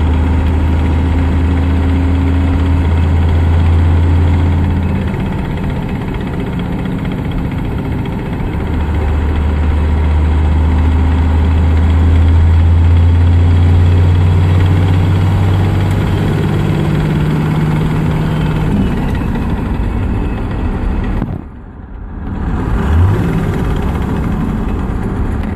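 Truck engine idling with an NV4500 five-speed manual transmission making a tick/click noise, a weird transmission noise that follows engine speed in neutral and transmission speed in gear. The steady hum shifts in pitch a few times and drops out briefly about 21 seconds in.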